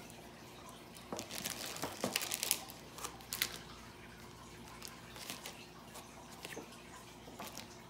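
Clear plastic sleeve of laptop paperwork crinkling and rustling as it is handled, with light clicks and knocks of packaging on the table, most of it in the first half.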